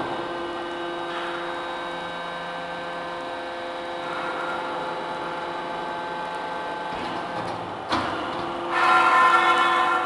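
Hydraulic scrap metal baler running: a steady hum and whine from its hydraulic power unit. About eight seconds in there is a sharp knock, and near the end the whine gets louder and higher.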